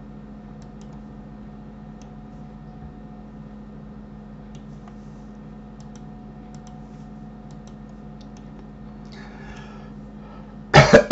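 Faint, scattered clicks of a computer keyboard and mouse over a steady low electrical hum. A loud, short burst of noise comes near the end.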